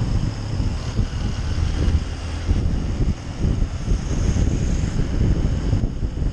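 Wind buffeting the microphone on a moving Honda CRF150L, a heavy low rumble, with the bike's single-cylinder four-stroke engine running steadily underneath.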